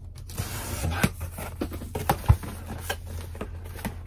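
Cardboard shipping box being opened and handled: flaps rustling and scraping, with scattered knocks and one heavier thump a little past two seconds in.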